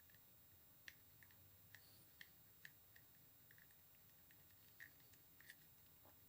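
Near silence with faint, irregular small clicks from hands handling polymer clay and small modelling tools.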